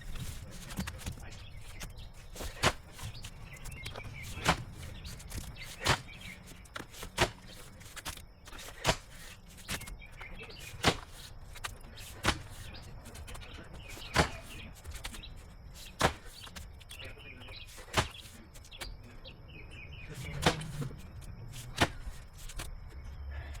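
Pickaxe striking packed clay and rock in the bottom of a trench, a sharp blow every second and a half to two seconds.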